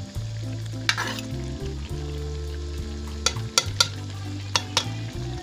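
Metal ladle stirring and scraping a sizzling potato and black-eyed bean curry in a metal pot, with sharp clinks of the ladle against the pot about a second in and several more between three and five seconds.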